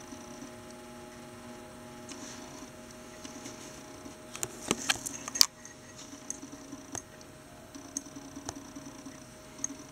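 A steady electrical hum under quiet room sound, with a quick cluster of sharp clicks and knocks about four and a half to five and a half seconds in, then a few single clicks.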